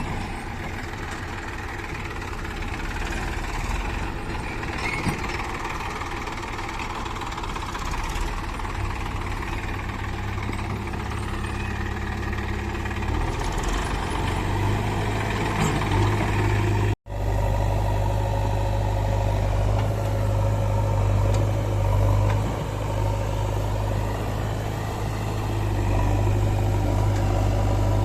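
Engine running steadily. About two-thirds of the way through, the sound cuts out for an instant, then a deeper, louder engine hum carries on.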